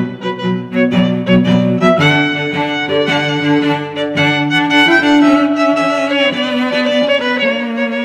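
Instrumental background music: a melody of held notes moving from one pitch to the next.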